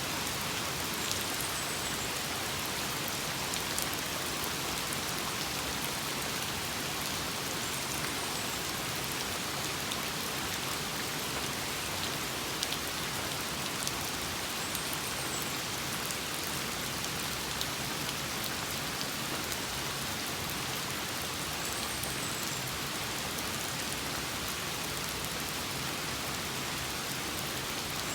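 Steady rain falling beside a house, an even hiss with scattered individual drops ticking on surfaces. A faint high-pitched call repeats about every seven seconds over it.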